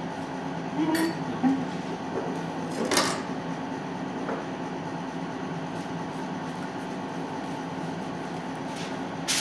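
Steady machine hum of commercial kitchen equipment. Two brief handling noises come about one and three seconds in, as luau leaves are wrapped around pork.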